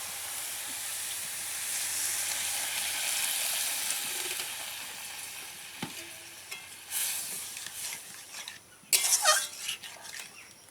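Grated coconut, sugar and thickened milk sizzling in a hot pan as they are stirred, the sizzle slowly dying down. Near the end, a few loud scrapes of the stirring utensil against the pan.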